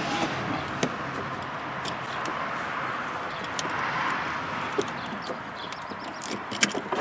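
Light metallic clicks and taps as a car battery's negative terminal clamp is fitted back onto the battery post, over a steady background hiss that swells around the middle, like passing traffic.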